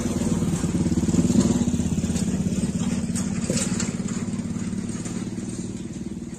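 A small vehicle's engine idling with a fast, even putter, easing off a little toward the end.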